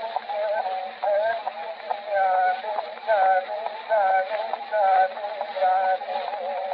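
Male voice singing an ornamented, wavering melismatic line from an Egyptian dour, in short repeated phrases. It is heard off an early gramophone record: narrow and thin in sound, with steady surface hiss and a faint low hum.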